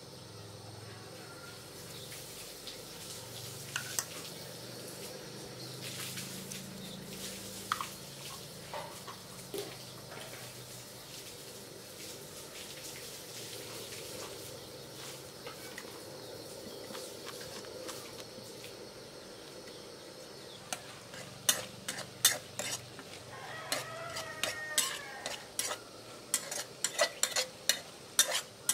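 Hot oil sizzling steadily in a wok with lemongrass, lime leaves and chillies, with mole crickets going in partway through. Near the end a spatula clacks and scrapes against the pan in quick strokes as everything is stir-fried.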